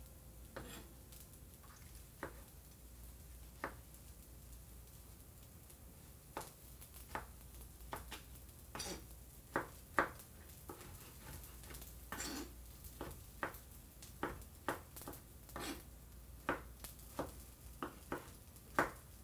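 Chef's knife dicing tomatoes on a plastic cutting board: separate light knocks of the blade on the board, only a few at first, then about two a second from around six seconds in.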